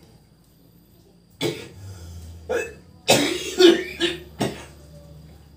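A person coughing: about six short coughs in quick succession, beginning about a second and a half in. It is the persistent dry cough being treated.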